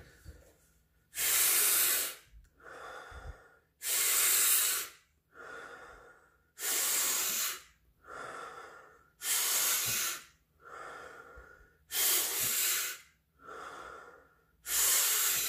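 A man doing Wim Hof method breathing: a strong, fast inhale through nose and mouth, then a softer, relaxed exhale, repeated in an even rhythm of about one breath every two and a half seconds, six times.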